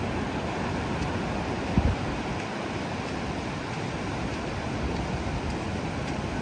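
Ocean surf breaking and washing on a flat sandy beach, a steady rushing wash. A brief low thump about two seconds in.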